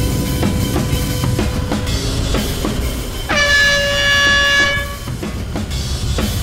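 Background music with a steady drum-kit beat; about halfway through, a single held tone rings out for about a second and a half over the drums, then stops.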